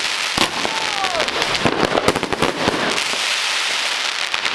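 Heavy fireworks going off in a dense barrage: many sharp bangs over continuous firecracker crackling, with a whistle falling in pitch about a second in.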